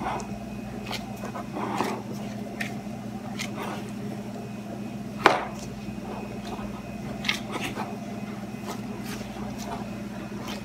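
Gloved hands kneading sticky bread dough in a glass bowl: irregular soft squelches and knocks against the glass, the loudest about five seconds in, over a steady low hum.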